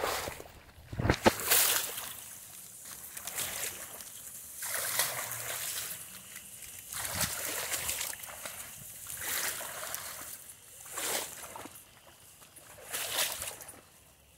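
Tall grass and leaves rustling and swishing as someone pushes and searches through the vegetation, in repeated bursts every second or two, with a sharp knock about a second in.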